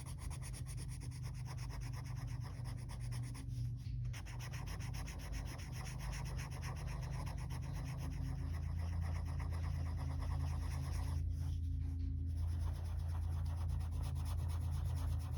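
Kalour coloured pencil shading on colouring-book paper: rapid back-and-forth scratching strokes, broken by two short pauses, about four seconds in and around eleven to twelve seconds.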